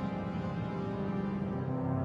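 Background music made of sustained, held tones with no beat.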